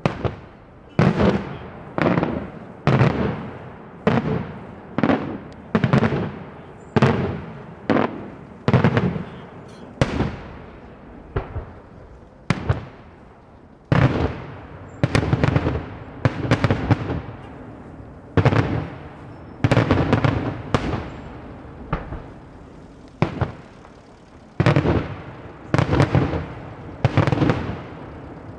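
Daylight fireworks display: a steady run of loud bangs from exploding shells, about one a second with a few brief gaps, each bang followed by a rolling echo that fades before the next.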